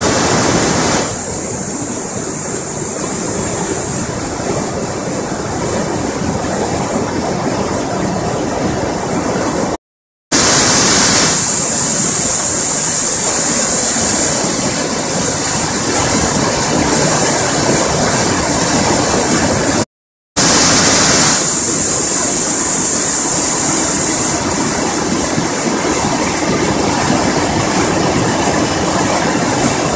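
The River Kennet running very high in flood, churning white water pouring through the channel at Padworth Mill in a loud, steady rush. The sound cuts out for a moment twice.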